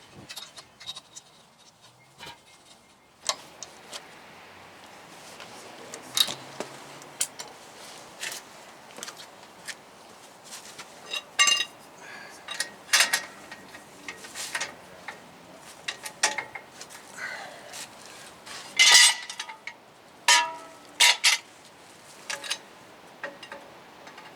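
Hand tools and metal hardware clinking and clanking irregularly, a couple of dozen separate knocks, several of them ringing briefly; the loudest comes a little past the middle.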